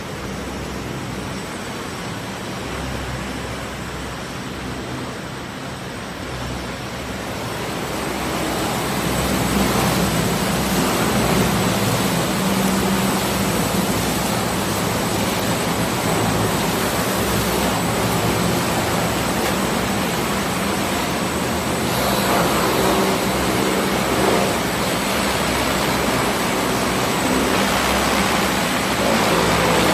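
Profile sanding machine running, its rotating sanding heads and abrasive-strip brush wheels spinning, a steady rushing noise over a low motor hum. It grows louder about a quarter of the way in and then holds steady.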